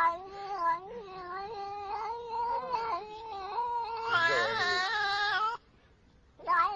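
Cat yowling in a long, drawn-out, wavering wail that grows louder about four seconds in, breaks off briefly near the end, then starts again.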